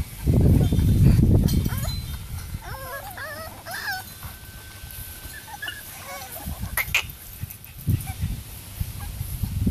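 French bulldog puppies whining and whimpering in short, wavering high-pitched cries about three to four seconds in. A loud low rumble fills the first couple of seconds, and a sharp click comes near the seventh second.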